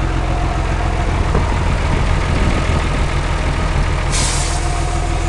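Pegaso truck's turbo-diesel engine idling steadily, with a short hiss of released air from the truck's air system about four seconds in.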